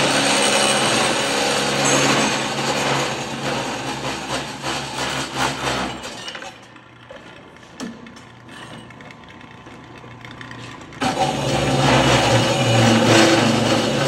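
Brobo Super 300 industrial cold saw running with a steady hum, its 12-inch blade cutting steel tube. The saw stops about six seconds in, a single click follows, and it starts up again abruptly about eleven seconds in.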